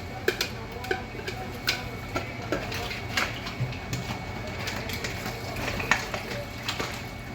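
Mussels being stirred with onions and garlic in a pot: shells and utensil clinking irregularly against each other and the pot. A steady low hum from the range-hood exhaust fan runs underneath.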